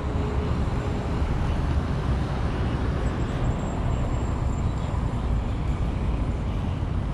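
Road traffic noise picked up by a walking GoPro's microphone: a steady, low rumble with a car driving along the road.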